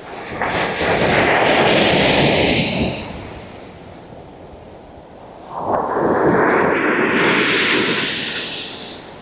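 Ocean waves breaking on the shore, twice: each wave builds into a loud, rushing crash and then fades as it washes out.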